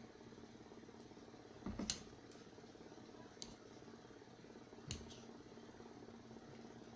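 Eating at a table: a few short clicks and knocks of utensils and food, the loudest about two seconds in and two fainter ones later, over a steady low hum.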